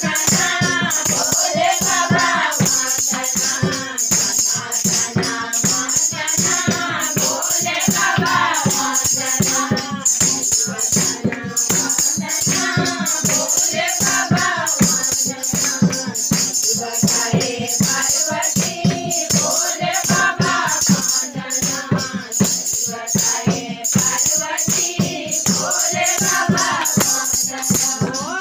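Group of women singing a devotional bhajan together over a quick, steady beat of hand clapping, a shaken jingle rattle and a tambourine.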